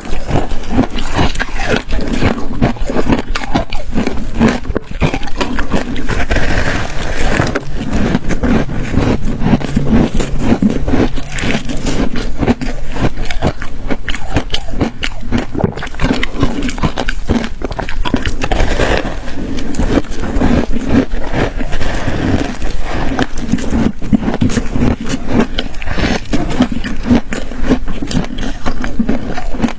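Ice being bitten and chewed, a dense unbroken run of crunches and sharp cracks.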